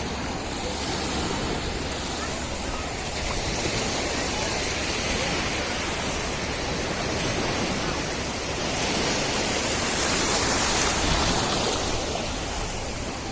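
Sea surf washing onto a sandy beach in a continuous rushing wash, swelling louder twice, about four seconds in and again near ten seconds.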